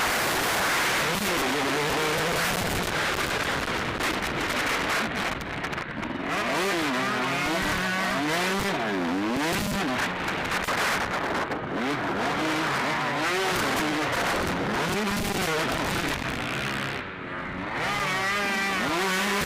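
Motocross bikes racing, their engines revving up and down again and again as they accelerate and back off, under a heavy hiss of noise on the recording.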